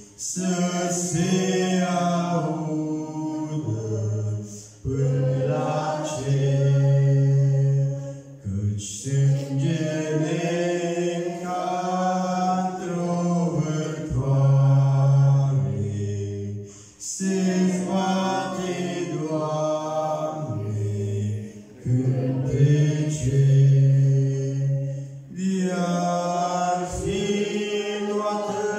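A man singing a Romanian hymn solo through a microphone, in long held notes. The phrases run a few seconds each, with short breaths between them.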